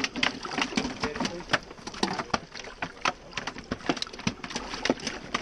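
Water sloshing and splashing in a cooler livewell as hands grab the bass inside, heard as quick, irregular splashes and slaps.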